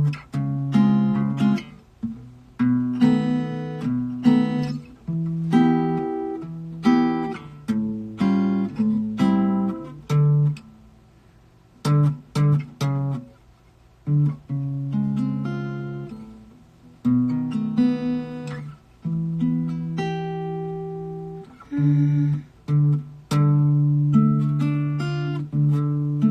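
Acoustic guitar played in stop-start chords and short phrases, each chord ringing out and fading before the next, with brief pauses between: someone feeling out a song's chords from memory.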